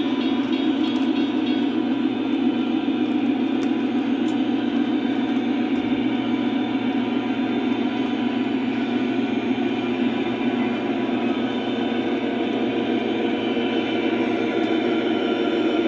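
Lionel O scale model train running on three-rail track, a steady rumble of wheels and motors as the cars roll past.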